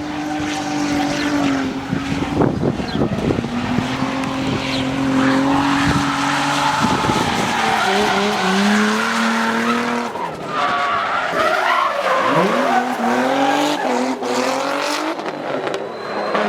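Twin-turbo Nissan 350Z's V6 engine revving hard while drifting, with tyres squealing and skidding. The engine note holds fairly steady for the first several seconds, then drops and climbs sharply several times in the second half.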